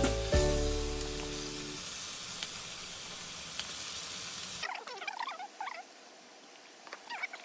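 Food sizzling in a hot pan, the hiss fading over the first few seconds. About four and a half seconds in it cuts abruptly to a quieter scene with short, high chirping calls.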